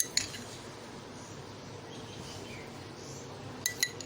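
A metal spoon clinking against a glass: two light clinks at the start and two more near the end, over a faint steady hum.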